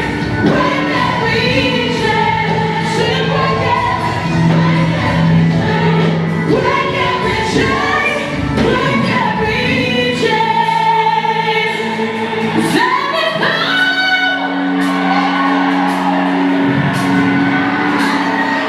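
Gospel singing by several voices over band accompaniment, with long held low notes underneath the melody.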